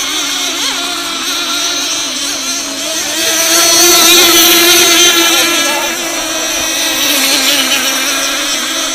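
Outboard motors of several racing boats running at high revs as a steady, high-pitched whine. It swells louder for a few seconds about three seconds in as one boat comes close.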